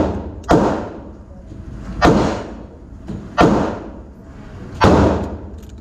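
Handgun shots fired one at a time in an indoor range, four of them about one and a half seconds apart, each with a short ringing echo off the booth walls.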